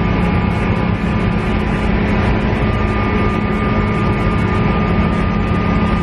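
KiHa E130 diesel railcar under way, heard from inside the passenger cabin: a steady engine drone with running noise from the wheels and rails. A thin high whine comes in about two and a half seconds in and holds.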